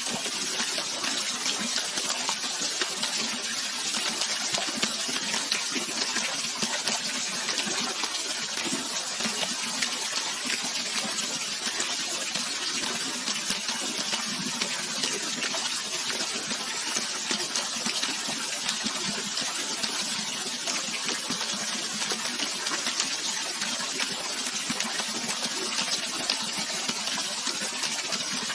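Steady rushing and splashing of running water from a waterfall or stream, an even hiss with a fine splashing texture and little low rumble.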